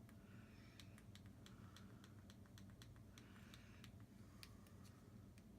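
Near silence: room tone with faint, quick clicks a few tenths of a second apart.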